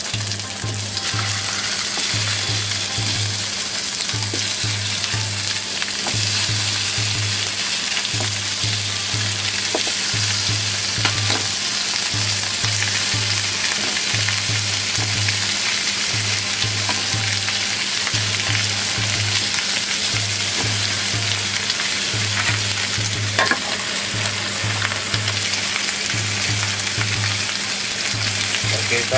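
Chicken wings and drumettes sizzling steadily in hot oil in a nonstick frying pan as they are seared for browning, a dense crackling hiss with a few light knocks as pieces are moved. A low pulsing hum runs underneath.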